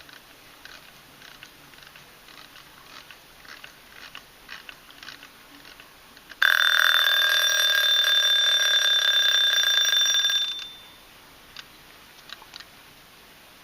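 Vintage Tiffany & Co. mechanical alarm clock's bell ringing: the alarm goes off suddenly about halfway through, rings loudly and steadily for about four seconds, then stops. Before it, faint scattered clicks.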